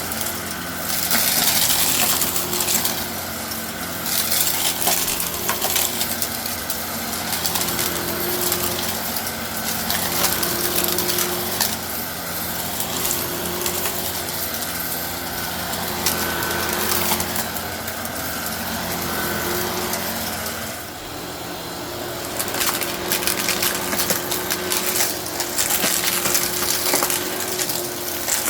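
Eureka Innova upright vacuum with its brushroll running, sucking up aquarium gravel that rattles and clicks through the nozzle and hose over the steady motor hum. The crunching swells and eases every couple of seconds.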